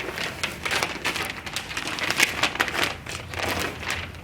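Sheet of adhesive contact paper crinkling and crackling as it is handled and laid onto a cardboard box, a fast, irregular run of small snaps and rustles.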